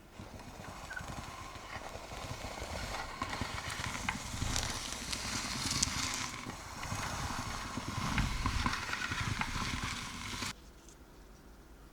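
A bread knife sawing through a crusty chocolate loaf, the crust crackling and crunching with many small snaps. The cutting stops abruptly about ten and a half seconds in.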